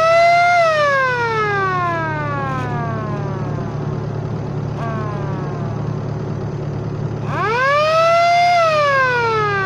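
Siren fitted to an excavator, switched on by push button, wailing over a steady low hum. Its pitch rises quickly, holds briefly, then falls slowly. It climbs again near the end.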